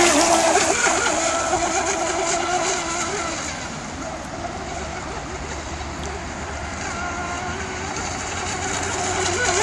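Brushless electric motor of a Joysway Sea Fire R/C hydroplane racing boat running at speed across the water, a high whine that wavers in pitch with the throttle. It fades as the boat runs farther off, then grows louder again near the end.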